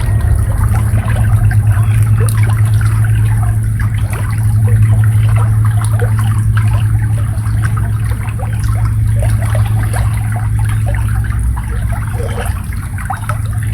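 Shallow water babbling and trickling over a rice field, a dense patter of small splashes over a steady low rumble.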